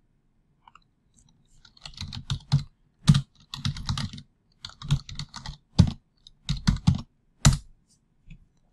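Typing on a computer keyboard: uneven bursts of keystrokes beginning about a second and a half in and stopping near the end.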